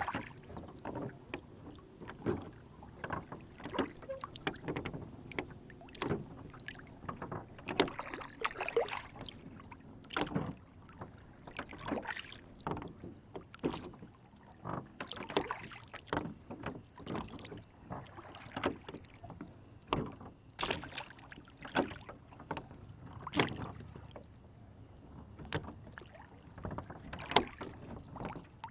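Lake water lapping and sloshing against a small rowboat, with short irregular splashes and light knocks, roughly one every second or two.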